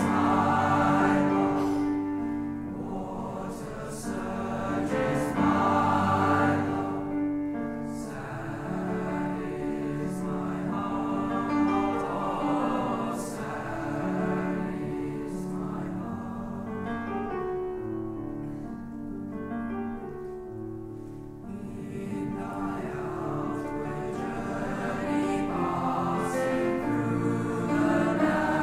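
A choir of teenage boys singing together, several voices on different held notes at once, the sound swelling and easing from phrase to phrase.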